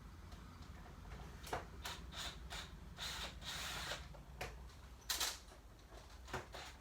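Clicks, knocks and a stretch of scraping from a screwdriver and plastic parts as the handle screws are taken out of a Hoover WindTunnel upright vacuum. The loudest click comes about five seconds in.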